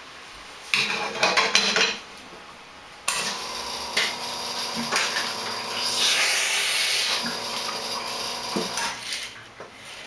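Metal clattering as the espresso machine's portafilter is handled, then from about three seconds in the SanRemo Capri espresso machine's pump runs steadily with a hum and a hiss as a shot is pulled, stopping near the end.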